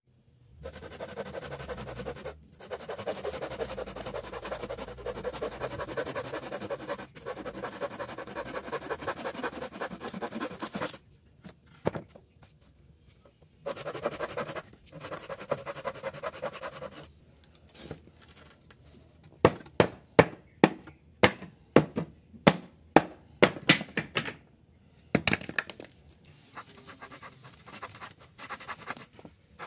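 Folding hand saw cutting through an old wooden pallet board, fast back-and-forth strokes in long runs with pauses between them. In the middle comes a run of a dozen or so sharp knocks, about two a second, louder than the sawing.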